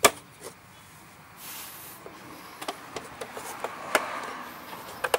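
Hands handling small metal mower parts: a sharp click at the start, a brief hiss, then rubbing and a few lighter clicks.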